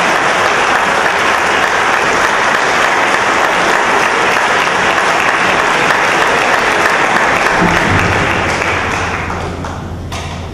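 Audience applauding, a dense steady clapping that dies away over the last second or two.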